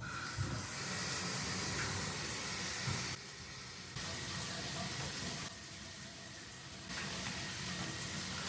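Water running steadily, its level stepping up and down abruptly several times.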